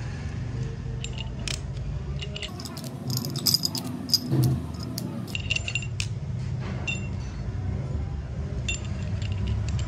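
Steel rollers of a tapered roller bearing clinking and rattling against its metal cage as they are fitted in by hand. There is a quick run of sharp metallic clinks about three to four and a half seconds in, with scattered single clinks before and after.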